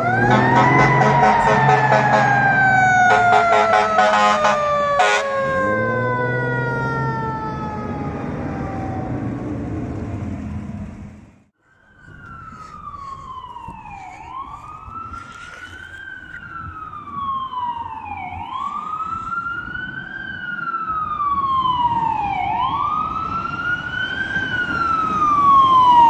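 Fire truck sirens. First a siren winds down in pitch over about ten seconds, with air horn blasts over its first five seconds. Then, after a brief break, a wail siren rises and falls about every four seconds and grows louder near the end as a fire ladder truck passes.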